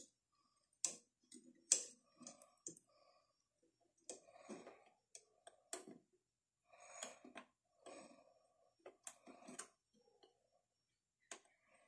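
Faint, irregular clicks and rustling as fingers handle wires and fit a CPU fan's 3-pin connector onto the motherboard header.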